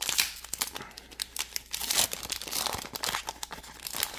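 Pokémon Paldea Evolved booster pack's foil wrapper being torn open and crinkled by hand: dense, irregular crackling that stops near the end.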